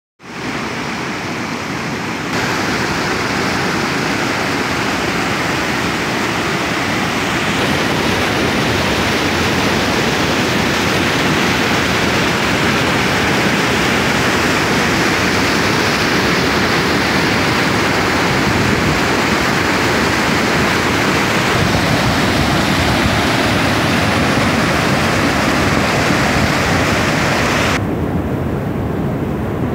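River water rushing and splashing over boulders in small cascades: a steady, loud rush of white water. The sound shifts slightly about two seconds in and again near the end, with less hiss in the last couple of seconds.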